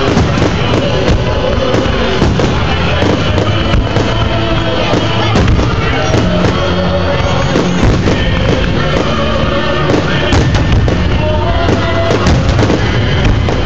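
Aerial fireworks shells bursting one after another with many sharp bangs and crackles, over continuous music.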